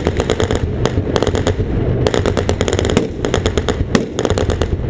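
Tank-mounted machine gun firing several bursts of rapid shots in quick succession, with short gaps between bursts. The tank's engine rumbles steadily underneath.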